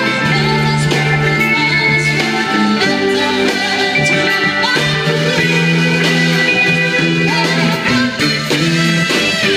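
A live band playing music, with guitar among the instruments and sustained notes held throughout.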